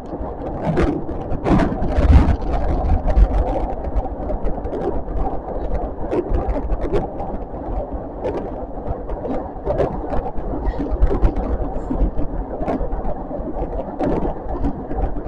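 Osaka Metro Midosuji Line train running at speed on elevated track, heard from inside the car: a steady rumble with irregular clicks and knocks from the wheels on the rails.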